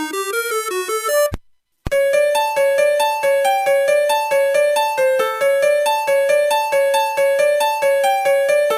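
Astrofone M51i phone ringtones: one melody ends about a second in, then after a short gap with two clicks a new ringtone plays a quick, even run of notes, one note repeating with higher notes between.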